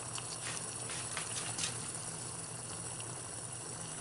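Water bubbling at a boil that is easing off, in a stainless steel cup heated by a small methanol alcohol stove that is nearly out of fuel: a steady hiss with a few light pops in the first couple of seconds, over a low steady hum.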